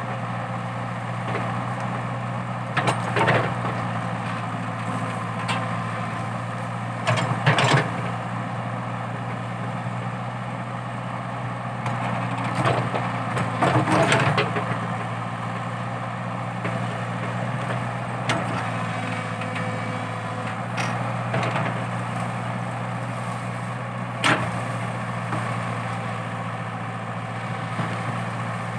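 Komatsu PC80 hydraulic excavator's diesel engine running steadily under load while it digs out a eucalyptus stump. About six sharp bursts of cracking and splintering wood, as roots tear, are spread through the stretch; the loudest come around a quarter and halfway through.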